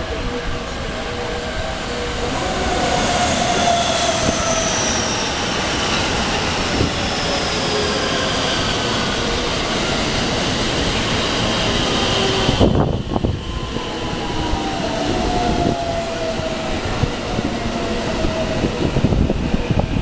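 JR West electric commuter train running on the line, with the rumble of wheels on rail under several motor whines that slide down in pitch. The high hiss drops away suddenly about thirteen seconds in, and further falling whines follow.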